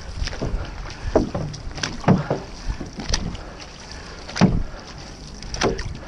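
Paddles of an OC6 outrigger canoe crew stroking through the water in rhythm, a splash of the blades roughly once a second over a steady rush of water.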